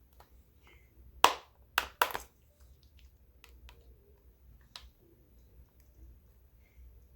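Three sharp cracks close together a little over a second in, then a fainter click a few seconds later: the hard plastic housing of a Clover Flex handheld payment terminal being pried apart with a tool.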